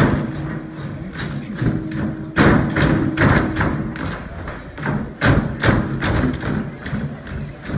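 Folk dancers' feet stamping and stepping on a stage platform, a string of heavy thuds in the dance's rhythm, with music underneath.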